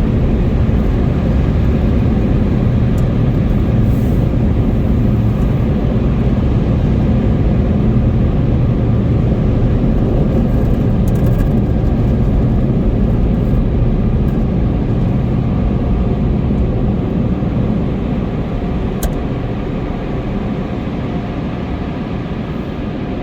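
Car on the move: a steady low road and engine rumble that eases off slightly near the end.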